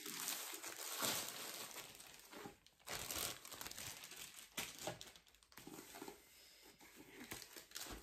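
Clear plastic wrapping crinkling and rustling as it is pulled off a rolled diamond painting canvas, loudest in the first couple of seconds. Softer, scattered rustles follow as the bare canvas roll is handled.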